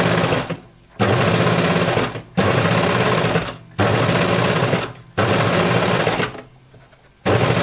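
Coverstitch machine sewing in short bursts of about a second, stopping briefly between runs, five or six times, with a longer pause near the end before it starts again. It is stitching the seam allowance on knit sweatshirt fabric.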